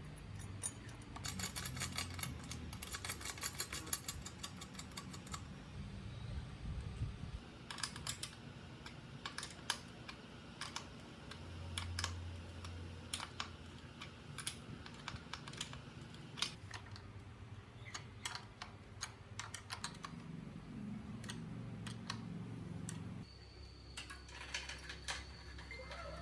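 Irregular sharp clicks and light taps scattered throughout, over a low hum.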